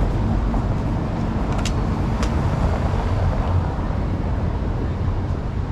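City street traffic noise: a steady low rumble of passing vehicles, with two sharp clicks about two seconds in.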